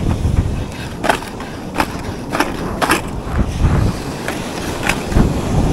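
Wind buffeting the microphone, with a series of short scraping clicks at irregular intervals of roughly half a second.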